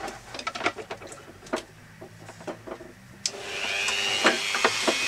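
Clicks and knocks of handling, then a little over three seconds in a Dremel rotary tool with a cut-off disc is switched on and spins up to a steady high whine.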